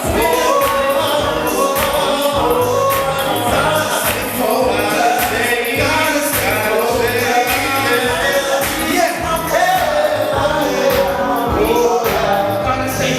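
Gospel music: singing over a band with a steady drum beat.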